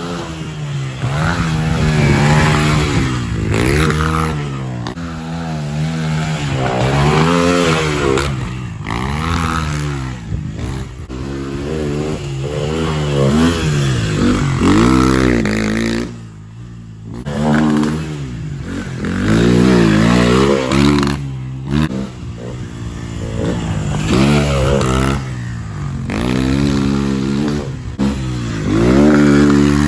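Honda XR100 pit bike's single-cylinder four-stroke engine revving up and falling back again and again as it is ridden hard, pitch climbing with each burst of throttle. The engine note drops away briefly about halfway through.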